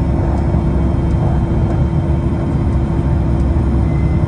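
Cabin noise of a Pilatus PC-24 business jet rolling on the ground after landing: a steady low rumble from its Williams FJ44 turbofans and the runway, with a constant hum running through it.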